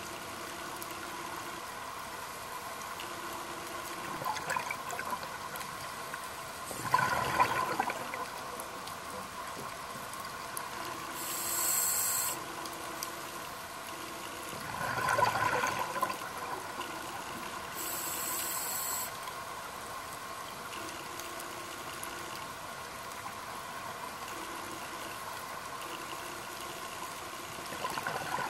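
Scuba diver's regulator breathing, heard underwater: twice a burst of exhaled bubbles bubbling up, about seven and fifteen seconds in, and twice a short high hiss of inhaling between them, over a steady underwater background.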